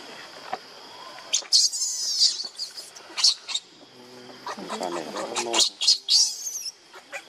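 Baby macaque giving shrill, high-pitched squealing cries in several bursts: about a second and a half in, again around three seconds, and a longer run between five and seven seconds.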